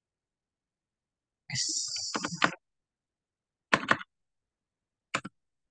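Computer keyboard keys clicking in short clusters of two or three presses as a router command is deleted and retyped, with a brief hiss about a second and a half in.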